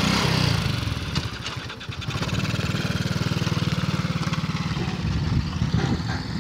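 Honda Biz 100's small single-cylinder four-stroke engine running on an adapted reverse trike as it pulls away. Louder in the first second, it dips about two seconds in, then settles into a steady, rapid putter.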